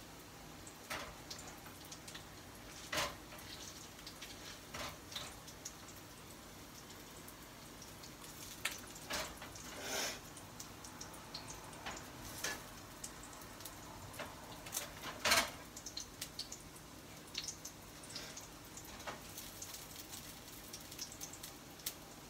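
Meatballs browning in olive oil in a frying pan: a low sizzle with scattered sharp pops of spitting oil, a few louder ones along the way.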